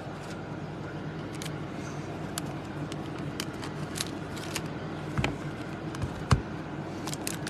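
Trading cards in hard plastic holders and foil card packs handled on a table: scattered light clicks and crinkles, with two soft thumps about five and six seconds in, over a steady low background hum.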